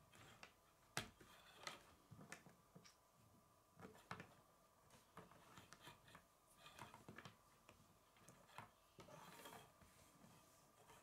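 Plastic K'nex rods and connectors being handled and fitted together on a wooden tabletop: scattered soft clicks and knocks, the sharpest about a second in, with a short rubbing scrape near the end.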